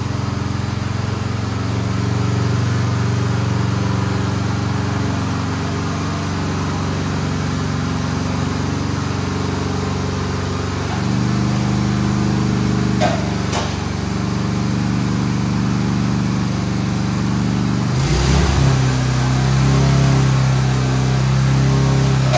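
Honda GX270 single-cylinder engine of a walk-behind tracked dumper running steadily as the machine is driven, its note stepping up about eleven seconds in and changing again, rougher, near the end. A sharp click comes about thirteen seconds in.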